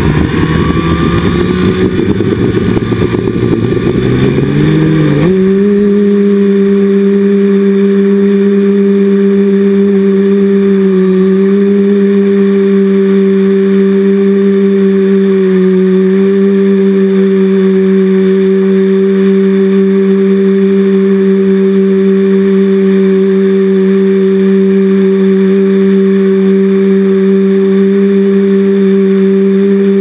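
Multirotor drone's electric motors and propellers spinning up for takeoff, a rough whine rising in pitch over the first five seconds. It then settles into a loud, steady hum while the drone flies, dipping briefly in pitch twice.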